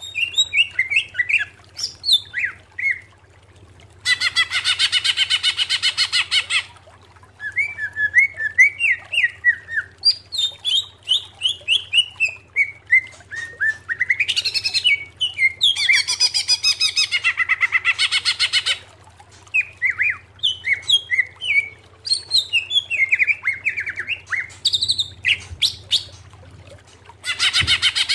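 Male greater green leafbird (cucak ijo) singing: runs of quick, sliding whistled notes, broken three times by a harsh, rapid rattling trill lasting two to three seconds, over a faint steady low hum.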